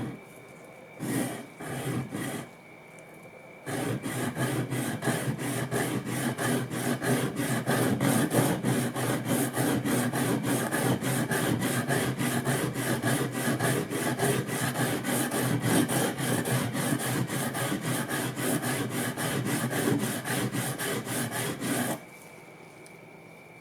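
Plane blade being rubbed back and forth on a sharpening stone: a few single strokes, then fast, even strokes at about four a second for some eighteen seconds before stopping, as the chipped edge is ground back to sharpness.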